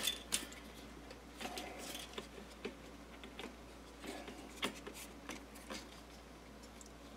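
Light clicks and taps of a toaster's plastic control housing and circuit board being handled and turned over, with a couple of sharper clicks right at the start.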